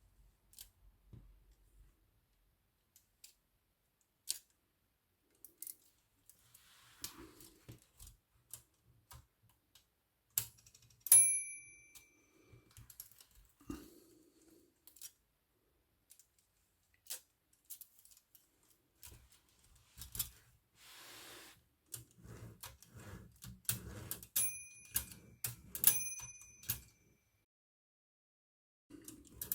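Scattered clicks and clacks of an Olivetti Lettera 22 typewriter's metal mechanism being handled during reassembly, with a short rasping slide partway through. The typewriter's small bell dings briefly several times, loudest about eleven seconds in.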